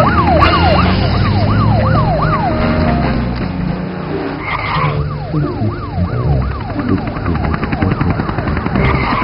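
Fire engine siren sounding in quick falling sweeps, about two a second. It breaks off for a moment around three seconds in, then starts up again.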